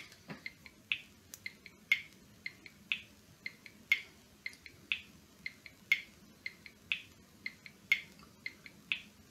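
Clock ticking: a sharp tick about once a second, with fainter clicks in between.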